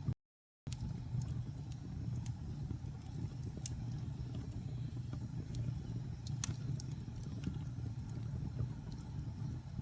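Wood fire burning in a fireplace: a steady low rumble of the flames with scattered sharp crackles and pops. The sound cuts out completely for about half a second near the start.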